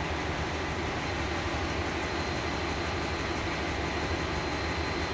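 Steady drone of a ship's engine-room machinery running: a low hum under an even hiss, with a faint high whine held throughout.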